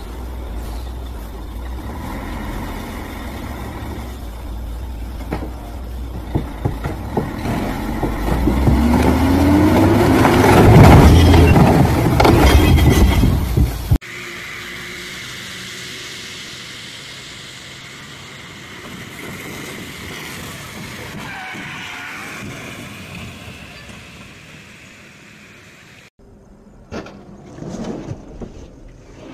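Heavy truck's diesel engine labouring under a load. It grows louder and revs up and down, at its loudest about nine to thirteen seconds in, then cuts off suddenly. A quieter steady noise follows, and a few short sounds come near the end.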